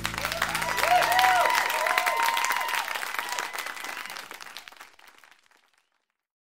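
Live concert audience applauding as the band's final chord dies away in the first second or so; the applause is then faded out, gone by about six seconds in.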